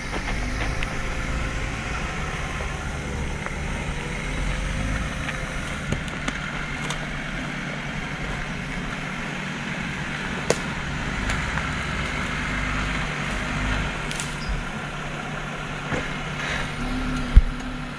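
Off-road vehicle's engine running low and steady as it crawls slowly over rocks, with a few sharp knocks; the loudest knock comes near the end.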